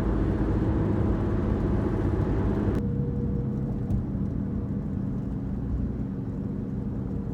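A car running, with steady engine and road noise. About three seconds in the sound changes abruptly and loses much of its higher hiss.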